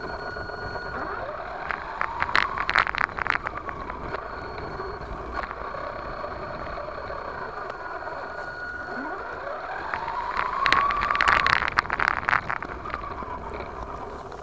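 1/10-scale RC monster truck heard from a camera mounted on it: the drive whine rises in pitch twice as the truck speeds up, over a dense crackle and rattle of the tyres on dirt and dry grass stalks brushing the body, louder and rougher about two seconds in and again around ten to twelve seconds.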